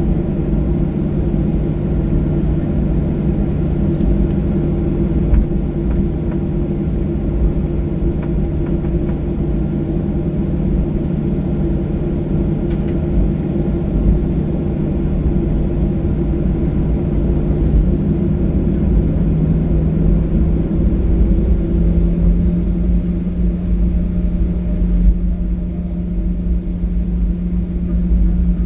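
Cabin sound of a Boeing 737-800 at low thrust on the ground: a steady, loud rumble with the CFM56-7B engines' constant hum. About 20 seconds in, the hum steps up slightly in pitch, as the engine thrust changes a little.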